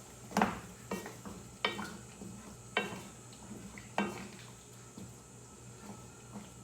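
A pot of chicken and pork adobo in soy sauce and cola being stirred, the utensil clinking against the pot about five times over the first four seconds, then going quiet.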